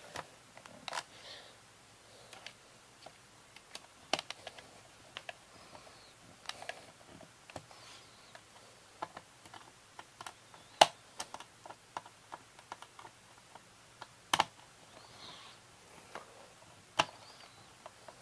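Irregular light clicks and taps of a plastic VHS cassette being handled, with a few sharper clicks in the second half.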